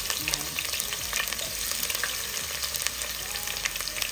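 Freshly added sliced red onions sizzling in hot cooking oil in a pot, a steady crackle of many small pops.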